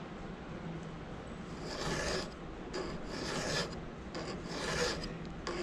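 Three strokes of a flat hand file on a chainsaw cutter, each just under a second long, starting about one and a half seconds in. The cutter is being filed back to match the others in length.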